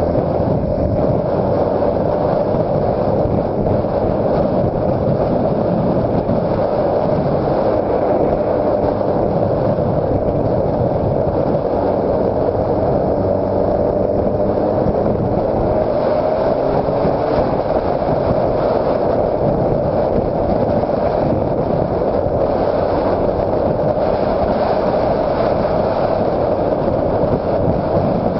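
Honda CBR600RR's inline-four engine running at a fairly steady, gently drifting pitch while riding, mixed with road and wind noise.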